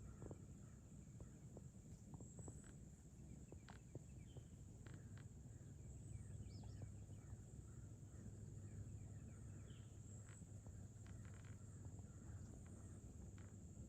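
Near-quiet outdoor ambience: faint scattered bird chirps and light ticks over a low steady background rumble.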